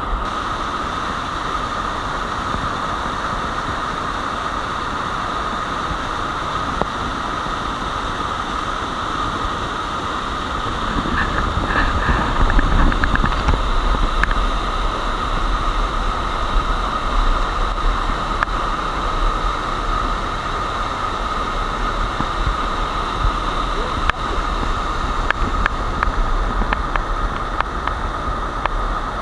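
Waterfall pouring into a pool nearby: a steady rush of falling water with a low rumble, briefly louder around the middle, with a few faint clicks near the end.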